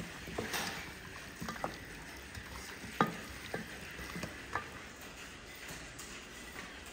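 Hands mixing raw chicken drumsticks with oil and spices in an enamel bowl: irregular slaps and clicks of the meat against the bowl, the sharpest about three seconds in, then quieter.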